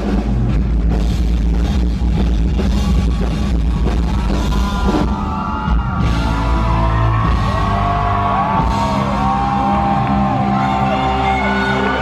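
Live rock band playing loud: drum kit, electric guitar and keyboards. From about halfway a lead line of repeated sliding, rising-and-falling notes comes in over the band.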